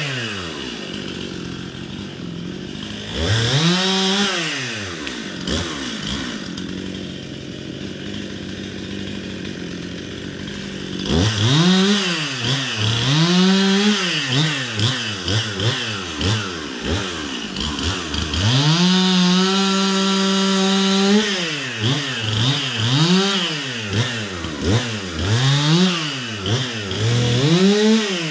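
Stihl two-stroke chainsaw limbing a fallen white pine: revved once about four seconds in, idling for several seconds, then revved up and let back down again and again, held at full revs for about two seconds past the middle.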